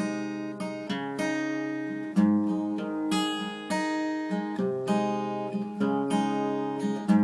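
Acoustic guitar strummed in an intro, a series of ringing chord strums about one to two per second.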